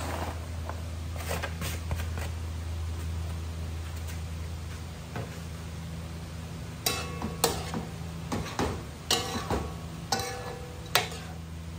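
Vegetables sizzling in a pot over a gas burner. From about seven seconds in, a metal ladle clinks and scrapes against the side of the aluminium pot as they are stirred.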